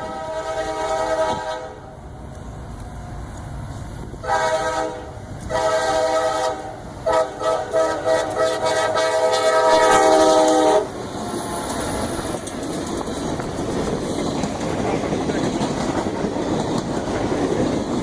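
Nathan K5LA five-chime air horn on a CSX EMD freight locomotive sounding a series of blasts: one ending about two seconds in, two more around four to six seconds, a few quick toots, then a long blast that cuts off near eleven seconds. After that the passing train's wheels and rails clatter steadily.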